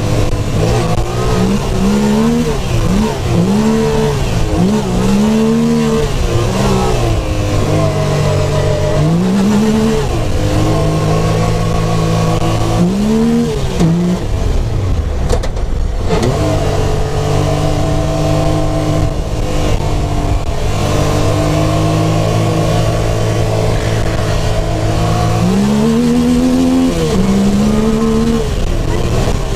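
Supercharged Yamaha YXZ1000R side-by-side's three-cylinder engine under way, revving up and dropping back again and again as it shifts through the gears. Through the middle it holds steady revs, then it climbs again near the end.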